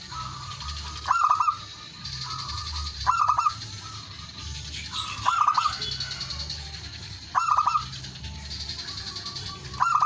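Male zebra dove (perkutut) cooing: short, rapid runs of soft staccato notes, repeated about every two seconds, four times and again at the very end. It is the male's song, used to call out a rival.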